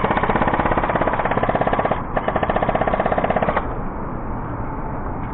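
Airsoft gun firing two full-auto bursts of rapid, evenly spaced shots, about fourteen a second: the first lasts about two seconds, the second, after a short pause, about a second and a half.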